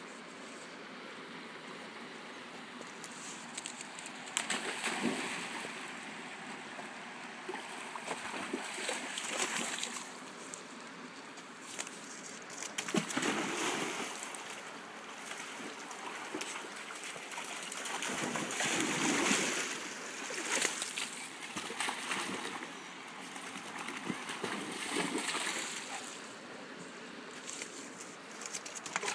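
Water splashing and sloshing at the shoreline, swelling and falling back in irregular surges every few seconds.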